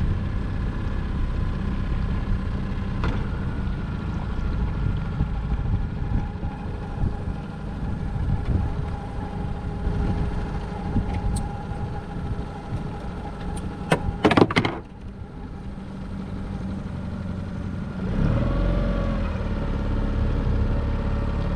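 Small outboard kicker motor running steadily. A brief, loud high-pitched squeal cuts in about fourteen seconds in.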